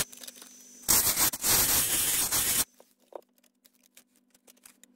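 Proxxon rotary tool with a small sanding disc grinding into the corner of a thin clear plastic body shell: a loud scraping burst from about a second in until a little past halfway, over the steady hum of the tool's motor at slow speed. Then the disc comes off the plastic, leaving only the hum and light clicks of the shell being handled.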